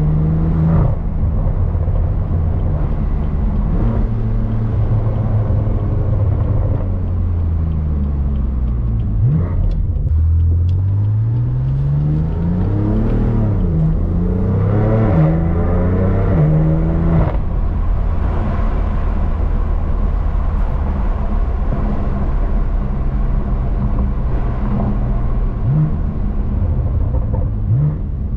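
BMW M3 CS's twin-turbo inline-six running through an AWE SwitchPath exhaust while driving. It cruises at a steady pitch, eases off, then accelerates in the middle with the pitch climbing in steps and dropping quickly at each upshift, before settling back to a steady cruise.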